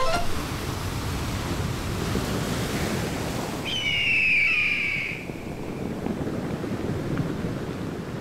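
Sea waves washing onto a shore: a steady rushing surf noise. About four seconds in, a brief high tone falls in pitch.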